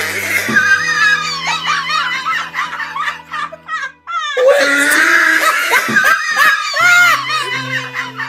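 Background music with steady bass notes and people laughing over it, with a short rising sweep about four seconds in.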